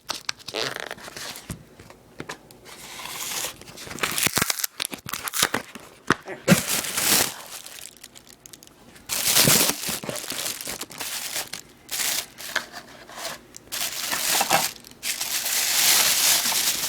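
Packing material from a mailed parcel being torn and crinkled by hand in irregular bursts, with a longer stretch of steady crinkling near the end.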